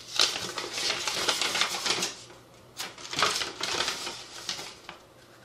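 A paper instruction manual being unfolded and handled: quick rustling and light clicks in two spells, with a short pause and a single click between them.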